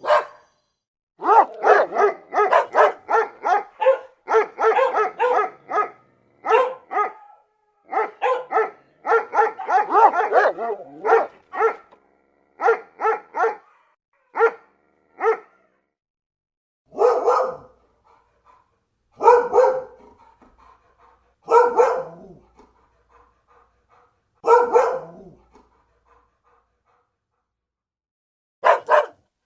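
Dog barking: quick runs of several barks a second for the first half, then single barks every two to three seconds, a few seconds' pause, and rapid barking again near the end.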